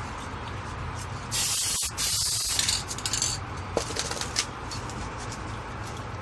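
Aerosol spray paint can spraying in two short hissing bursts about a second and a half in, followed by a few light clicks.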